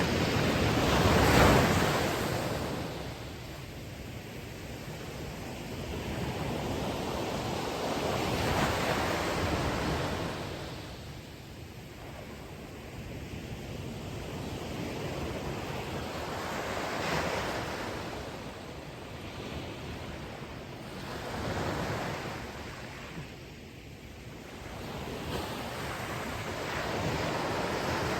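Ocean waves breaking on a beach, the surf rising and falling in repeated swells, the loudest about a second in.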